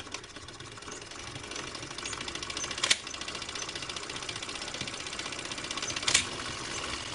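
Film projector running: a fast, even mechanical clatter, with two louder clicks about three seconds apart.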